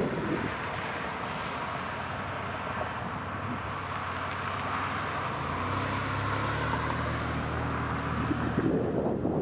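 ACA Screamer 9-port rotating outdoor warning siren winding down after a test, heard as a low steady hum. Wind buffets the microphone, easing after the first half-second and picking up again near the end.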